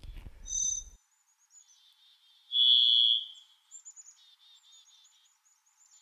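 Varied thrush singing: a short high note near the start, then, about two and a half seconds in, a loud ghostly whistle held on one pitch for almost a second. Faint high twittering goes on in the background.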